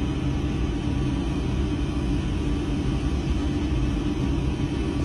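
Steady low rumble with a constant hum: the machinery noise inside the cabin of an OceanGate deep-sea submersible.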